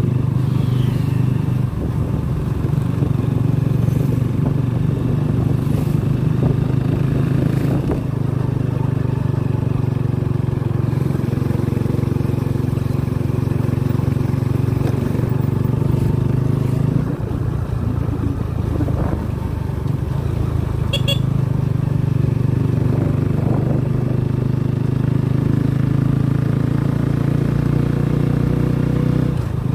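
Motorcycle engine running steadily under way, easing off for a few seconds just past the middle and then picking up again.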